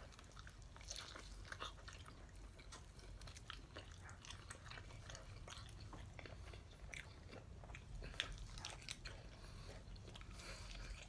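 A person chewing and biting into whole chicken wings: faint, irregular crunches and mouth clicks over a low steady hum.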